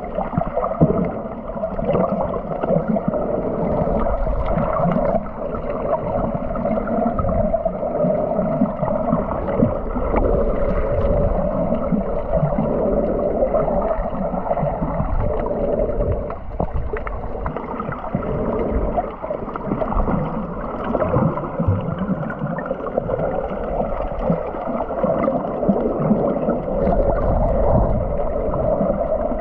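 Muffled underwater water noise picked up by a submerged action camera: a steady rushing gurgle with low rumbling and small irregular knocks, dull and cut off above the mid-range.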